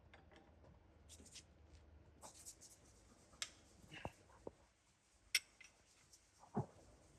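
Faint rustling and a few scattered sharp clicks and knocks of parts and hand tools being handled during suspension work, with one duller thud near the end.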